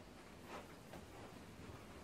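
Near silence: faint shop room tone with a couple of soft clicks about half a second and a second in.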